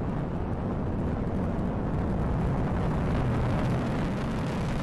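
Atlas V rocket's RD-180 main engine in powered ascent, heard from the ground as a steady, low, noisy rumble.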